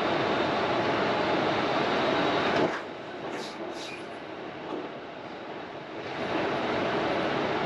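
Steady rumble of a vehicle on the road. It drops off sharply a few seconds in, two short high hisses follow, and the rumble builds back up near the end.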